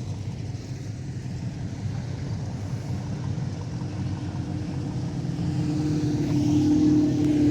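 Engines of cars rolling past slowly, a steady low rumble, with one car's engine note growing louder over the last two seconds.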